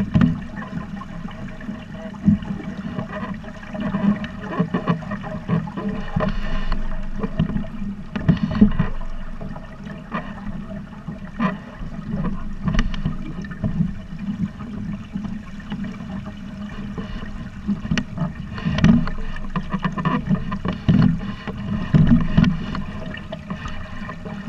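Water slapping and gurgling against the hull of a Buccaneer 18 sailing dinghy moving under sail: a steady low rush broken by irregular splashes.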